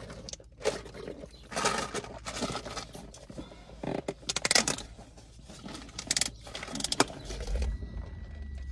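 Iced drinks sipped through straws from plastic cups: short irregular slurps and sucks a second or so apart. A low rumble joins near the end.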